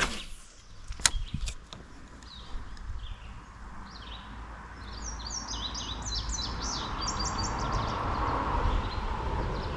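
A fishing rod swishes through the air on a cast, followed by a sharp click about a second in. A few seconds later a songbird sings a run of quick down-slurred notes over a steady background rush.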